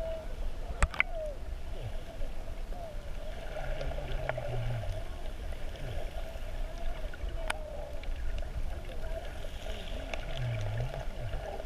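Muffled water sloshing and gurgling, heard through a camera held just under the sea surface, over a steady low rumble. Two sharp clicks stand out, about a second in and again a little past the middle.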